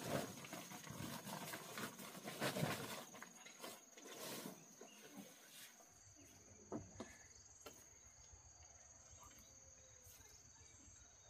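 Irregular rustling and knocking of something being handled for the first half, then only a few isolated clicks, over a steady high-pitched insect drone.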